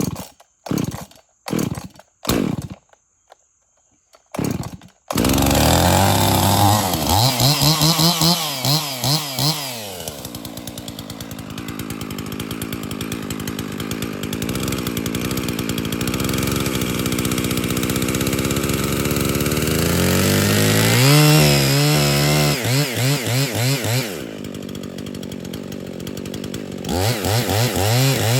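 A chainsaw cutting into a poplar trunk. After a few short bursts, the saw runs continuously from about five seconds in, its pitch rising and dropping as it works into the wood. It eases off briefly near the end, then revs up again.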